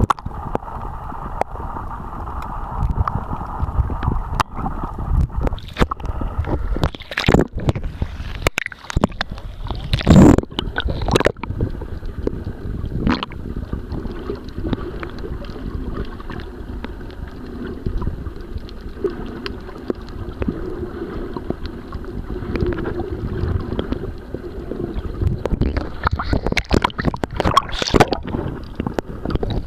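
Sea water sloshing and gurgling against a waterproof compact camera as it is moved at and under the surface, heard muffled through the camera's sealed body, with scattered knocks and one louder swell of noise about ten seconds in.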